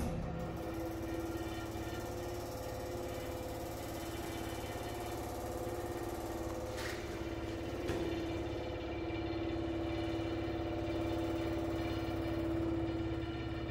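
Freeze dryer machinery running with a steady hum and a droning tone. There are two light clicks about seven and eight seconds in.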